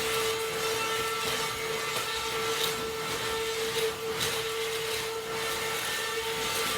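Vacuum cleaner running steadily while vacuuming the floor: a constant motor whine over a rushing hiss of air, with a few brief swells in the hiss.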